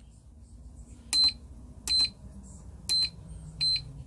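iMAX B6 balance charger giving four short, high-pitched key beeps, about a second apart, as its arrow buttons are pressed to step through the display screens.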